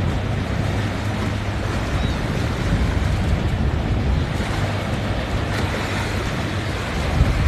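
Boat engines drone steadily while waves wash, with wind buffeting the microphone.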